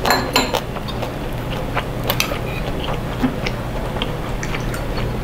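Small clicks and clinks of chopsticks and a metal cup at the table, with a quick cluster of them at the start and scattered ones after, over a steady low hum.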